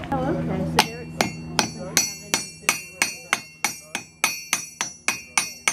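Blacksmith's hand hammer striking an iron nail held in a nail header on the anvil, forming the nail's head: a steady run of about three ringing metal-on-metal blows a second, starting about a second in after a brief voice.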